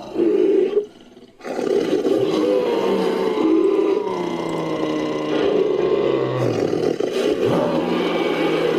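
Roar of an imagined ape creature, a sound effect built from layered animal and voice recordings: a short loud call, a brief break about a second in, then one long continuous roar.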